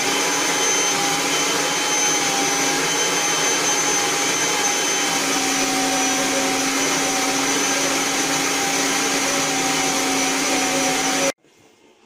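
Kirby Avalir vacuum cleaner running steadily, its hose attachment in use, a constant rush of air with a steady whine; it is switched off and stops abruptly near the end.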